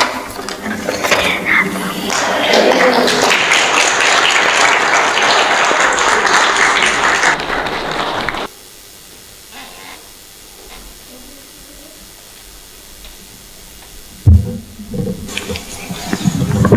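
An audience applauding for about eight seconds, stopping abruptly. Near the end a loud thump, then a few softer knocks.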